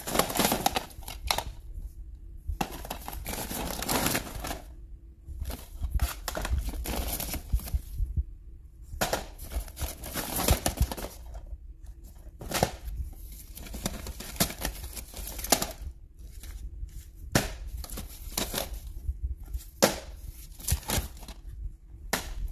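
Hands rummaging through a large woven plastic IKEA bag of DVDs. The bag rustles and crinkles, and plastic DVD cases clack and click against each other in irregular bursts.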